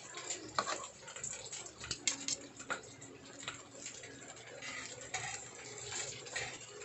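Meatloaf frying in hot oil in a pan, crackling and spattering, with a few sharp clinks of a metal utensil against the pan.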